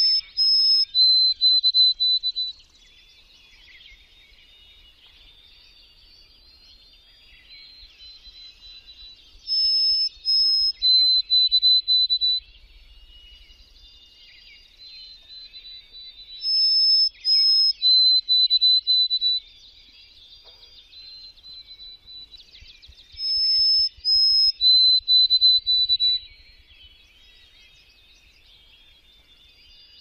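White-throated sparrow singing its clear whistled song four times, each about three seconds long: two high notes, then a run of lower repeated notes. Fainter chatter from other songbirds fills the gaps between songs.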